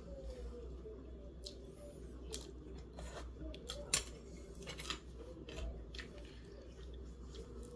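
Crisp fried chicken being picked apart by hand and chewed: irregular small crackles and clicks, with one sharper click about four seconds in, over a low steady hum.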